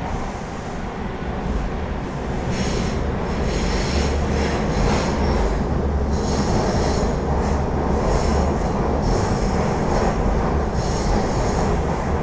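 Subway train running, heard from inside the car as a steady low rumble. From about two and a half seconds in, a wavering high-pitched squeal of steel wheels on the rails joins and keeps on.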